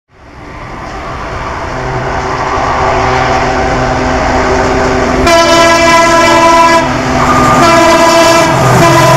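Diesel locomotive approaching with a passenger train, its engine drone growing louder. About halfway through its air horn sounds loudly, stops for under a second, then sounds again, still going at the end.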